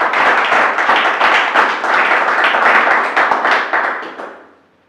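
An audience clapping and applauding, many hands at once, dying away over the last second or so.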